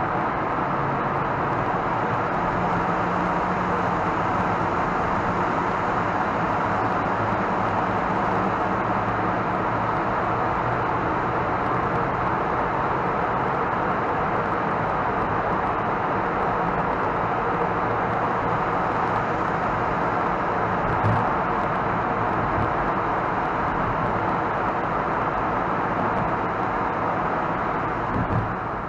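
Steady road noise of a car driving through a road tunnel, tyres and engine heard from inside the car. A brief knock about two-thirds through and another near the end, where the noise eases as the car leaves the tunnel.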